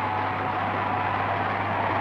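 Crowd cheering, a dense, even roar of many voices, heard through the hiss and steady low hum of an old optical film soundtrack.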